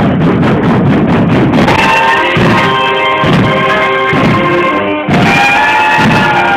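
Marching band playing loudly: a drumline beating rapid strokes at first, then the brass section holding and moving through chords over the drums, with a short break just after the middle.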